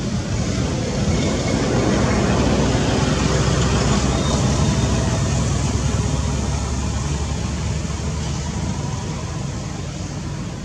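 A passing road vehicle: a steady rumble that swells over the first two seconds, holds, and slowly fades in the second half.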